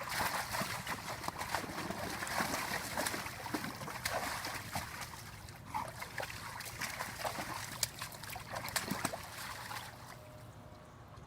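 Water splashing and sloshing in a foldable dog bath pool, an irregular patter of small splashes that dies away about ten seconds in.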